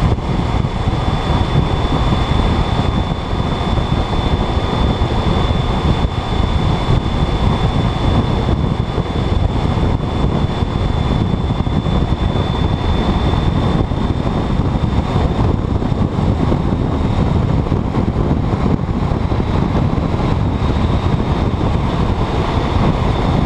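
Wind rushing over the microphone of a motorcycle riding at speed, with the motorcycle's engine running steadily underneath and a thin, high, steady whine.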